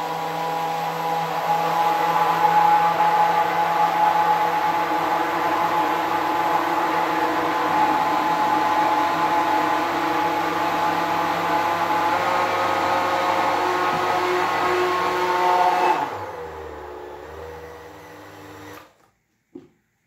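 Braun immersion blender running steadily, its blade churning an egg-and-milk mixture in a plastic jug. About sixteen seconds in it is switched off and the motor winds down, its pitch falling as it fades out over a few seconds.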